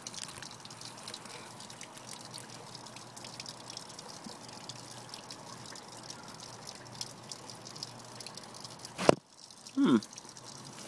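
Water dripping and trickling from the wet root mass of a tomato plant lifted out of an aquaponic raft bed, many small drips in quick succession. A single sharp knock about nine seconds in, then a brief falling voice sound.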